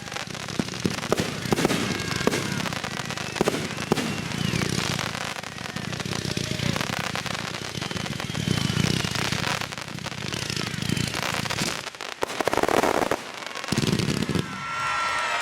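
Fireworks finale: a dense barrage of overlapping aerial shell bursts and crackle, dipping briefly about twelve seconds in before loud bursts pick up again.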